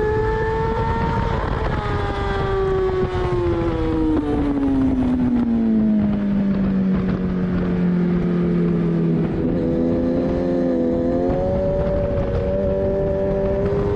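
2014 Kawasaki ZX-10R's inline-four engine heard from onboard at track speed, over steady wind rush. Its pitch falls steadily for several seconds as the bike brakes from over 100 mph for a corner, holds low, then steps up about eleven seconds in and climbs as the rider gets back on the throttle.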